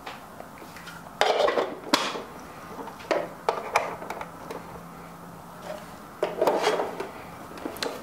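Hard plastic knocking and scraping as the bean hopper is seated and twisted into place on a Baratza Preciso burr coffee grinder, in three short bouts of clatter with quieter gaps between.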